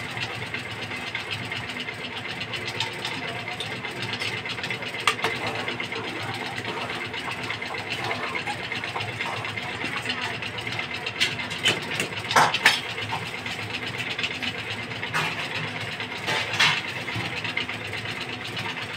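Steady hiss of a gas stove burner and gravy boiling in an aluminium pot. A few sharp clinks and knocks against the pot come while it is stirred, most of them in the second half.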